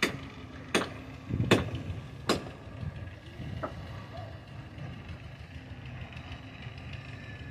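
A low steady rumble with several sharp knocks, about one every second in the first few seconds, then one more a little later.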